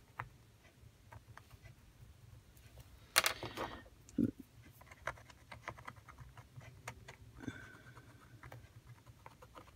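Faint scratching and light ticks of a Stabilo All pencil working on a paper book page, with a brief louder clatter about three seconds in.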